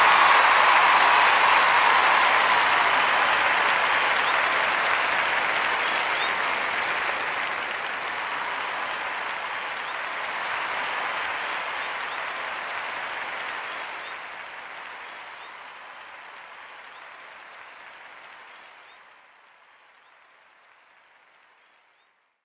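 A crowd applauding and cheering, fading out gradually until it is gone near the end.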